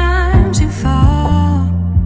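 Background music: a slow song with a singing voice over bass and drums.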